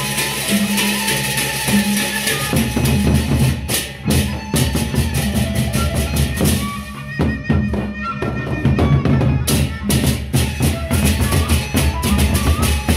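Gendang beleq ensemble playing: large Sasak double-headed barrel drums beaten in fast interlocking strokes, with cymbal clashes and held pitched notes over them. The texture thins briefly about halfway through, then the full ensemble comes back in.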